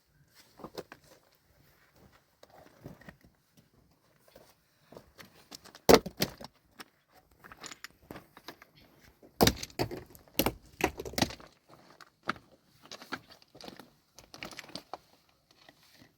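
Irregular knocks and clinks of hard objects striking one another, with a few loud sharp strikes about six seconds in and again around nine to ten seconds in.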